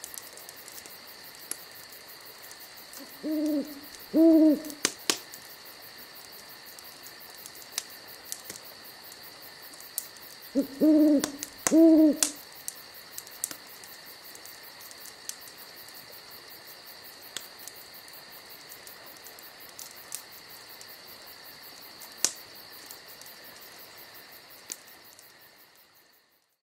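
An owl hooting in two short bouts of low hoots, about seven seconds apart, over a steady high-pitched chorus of night insects. Scattered sharp clicks.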